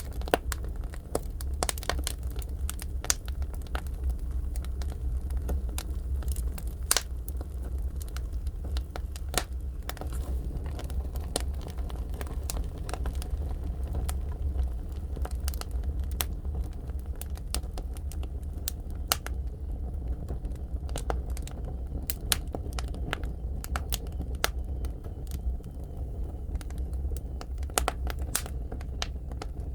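Firewood burning in a traditional Korean agungi firebox: irregular sharp crackles and pops over a steady low rumble.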